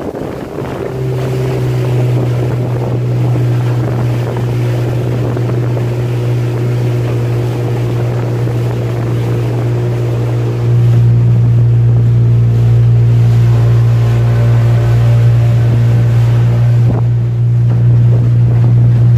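Motorboat engine running steadily at speed, a constant low drone that grows louder about a second in and again about halfway through.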